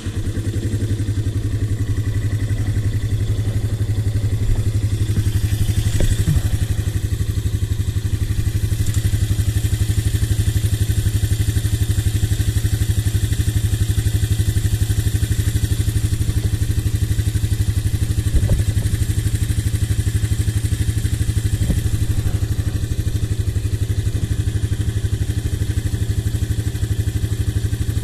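Honda TRX 125 quad's small single-cylinder four-stroke engine idling steadily, just started after an oil and filter change.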